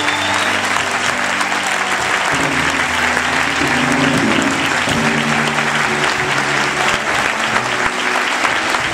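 Audience applauding throughout, with the orchestra holding long low chords that change every second or two underneath.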